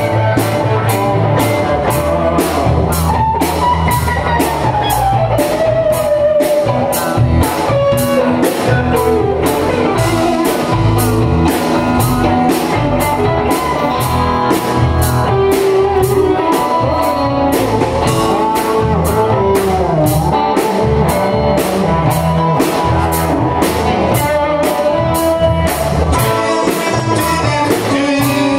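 Live band playing blues-rock: electric guitar lead lines with bent notes over bass and a drum kit keeping a steady cymbal beat.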